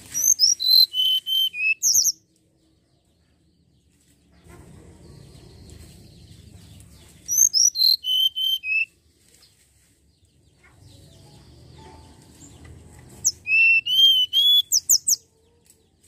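Hill blue flycatcher (tledekan gunung) singing three short phrases of clear whistled notes, each about two seconds long. The first two step down in pitch from high to lower notes; the third ends in quick high upward sweeps. A faint low rumble fills the gaps between phrases.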